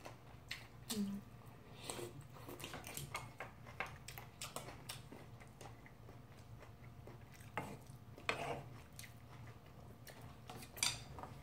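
Quiet eating sounds from two people having ramyeon noodles and gimbap: chewing and wet mouth sounds, with scattered light clicks of chopsticks.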